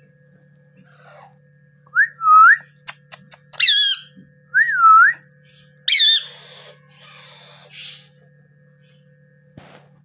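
Indian ringneck parakeets whistling and calling: curving whistles around two and five seconds in, a few sharp clicks, and two loud, harsh calls that sweep downward, about four and six seconds in. A faint steady hum sits underneath.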